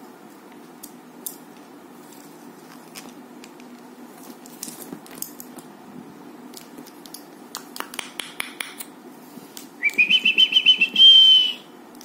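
Pet black-capped lory clicking, with a rapid run of clicks about two-thirds of the way through, then giving a whistled call near the end that rises and holds steady, first in quick pulses, then as one held note.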